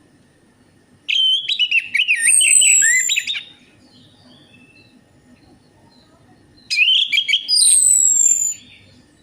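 Orange-headed thrush singing: two loud phrases of rich warbled whistles with sweeping high notes, a few seconds apart.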